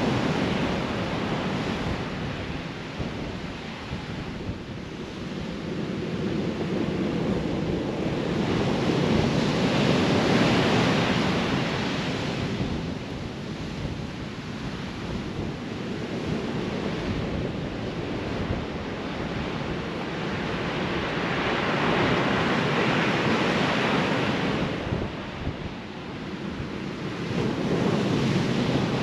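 Heavy surf from big swells breaking on a sand beach, a steady wash that surges and fades every several seconds as each wave comes in. Gale-force wind buffets the microphone.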